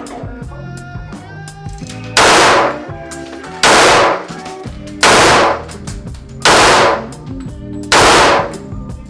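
Pistol fired five times in slow, even succession, about one and a half seconds between shots, each report ringing out briefly in the enclosed range.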